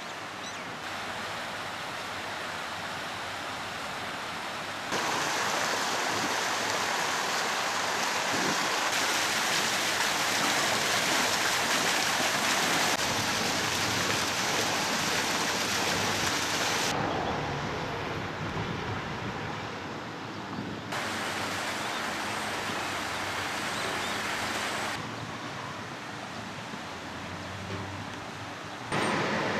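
Steady outdoor noise that changes abruptly every four seconds or so. The loudest stretch, in the middle, is the splashing of a fountain jet.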